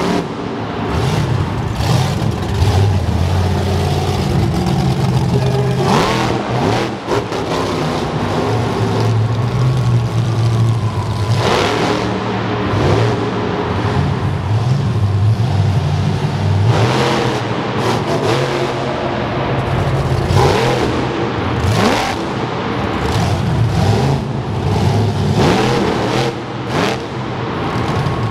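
Bigfoot monster truck's engine revving hard and easing off again and again, with several sharp crunches as its tyres run over flattened car bodies.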